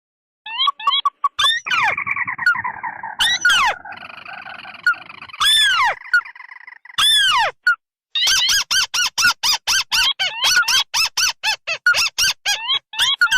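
Lure-call recording of rails, a combined track of ruddy-breasted crake and white-breasted waterhen calls. Loud harsh arching calls begin about half a second in and repeat, then from around the middle they give way to a fast run of short notes, about four a second.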